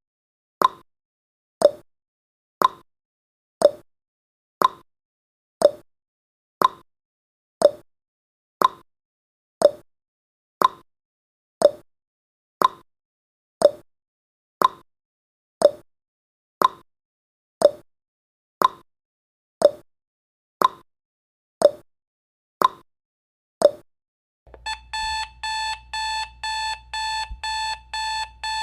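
Clock ticking once a second, alternating a higher tick and a lower tock, as the countdown runs out; about 24 seconds in the ticking stops and a rapid-beeping alarm-clock ring starts, marking the timer reaching zero.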